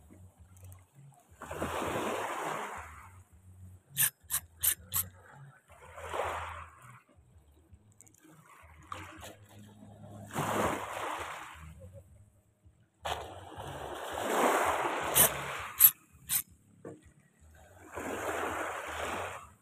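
Small sea waves lapping and splashing at the water's edge in repeated washes, each lasting a second or two and coming every few seconds. A few sharp clicks sound about four seconds in and again later.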